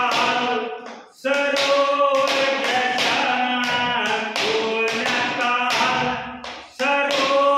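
A man singing a Haryanvi ragini folk song unaccompanied in long held phrases, while tapping out a steady beat of about three taps a second on a wooden desk. The singing breaks briefly about a second in and again near the end.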